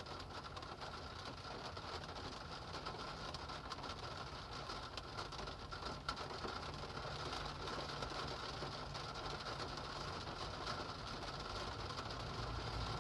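Steady rain falling, an even hiss full of fine crackling drop ticks, with a low steady rumble underneath.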